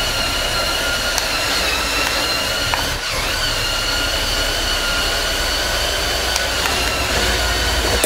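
The electric L-motors and plastic gear train of a CADA C61056 brick-built RC bulldozer running steadily as it drives on its tracks over a wooden floor. A high motor whine sits over a low track rumble, and the whine's pitch dips briefly about three seconds in.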